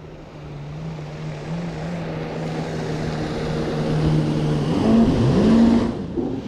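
A motor engine running with a steady hum and growing louder. About five seconds in, its pitch dips and climbs again as it revs, then it cuts off suddenly.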